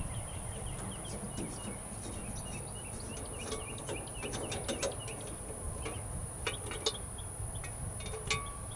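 Outdoor ambience: birds chirping and a steady high insect drone over a low rumble, with a few scattered light clicks and taps.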